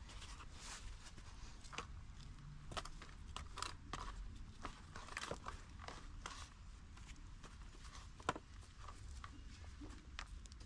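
Irregular scrapes and crunches of a small hand cultivator working potting soil in a plastic pot, with one sharper knock about eight seconds in.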